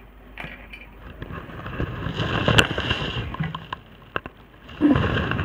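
Hands handling food on steel plates and bowls at a meal: scattered light clicks and rustling, with one sharp clack about two and a half seconds in.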